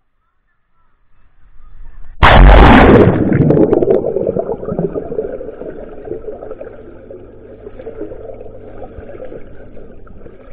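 A waterproof action camera plunging into pool water about two seconds in: a sudden loud splash and rush of water on the microphone, fading into a steady muffled underwater rushing.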